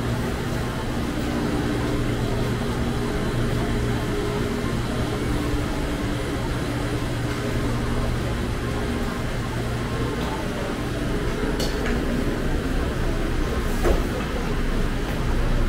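Street ambience dominated by a steady low hum of vehicle engines and traffic, with one short sharp knock near the end.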